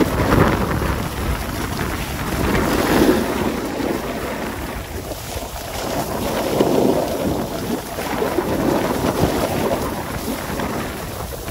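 Snowboard sliding and scraping over groomed, packed snow, the rasp swelling and fading every two to three seconds, with wind rushing over the microphone.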